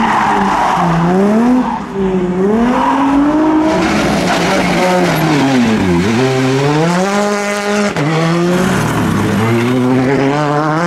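Performance car engines revving hard, the pitch climbing and dropping again and again as the cars are driven at the limit, with tyre squeal in the first second or so.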